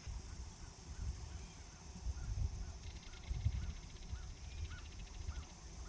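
Geese honking faintly, a row of short calls about two a second, over a low wind rumble on the microphone and insects chirping.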